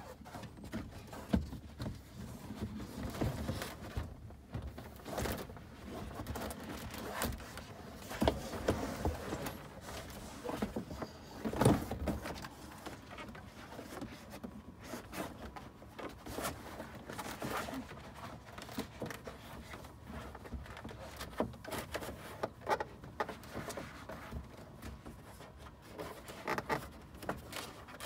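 Rustling and rubbing of custom-cut windshield and side-window sun screens being handled and pressed into place against the glass, with irregular small knocks and clicks; one louder knock about twelve seconds in.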